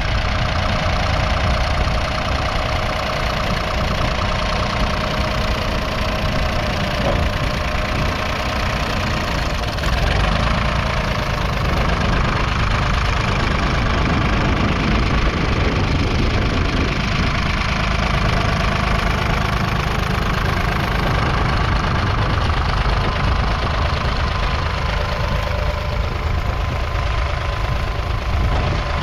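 1959 Nuffield Universal Three tractor's 2.6-litre three-cylinder diesel engine running steadily.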